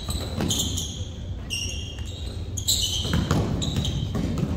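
Basketball bouncing repeatedly on a gym floor, with short high sneaker squeaks between the thumps and the echo of a large hall.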